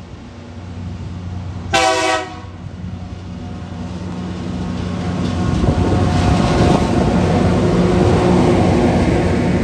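TasRail TR class diesel-electric locomotives approaching: a short horn blast about two seconds in, then the engines' steady drone growing louder until it is loud for the second half.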